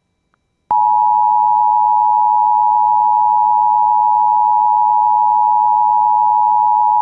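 Emergency Alert System two-tone attention signal: two steady tones sounded together at a loud, even level, starting just under a second in after a brief silence. It is the alert tone that announces that a warning message follows.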